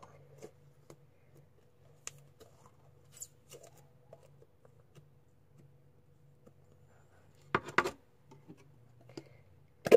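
Small clicks and rustles of slime containers being handled, with two louder knocks a little before the end and a sharp click at the very end.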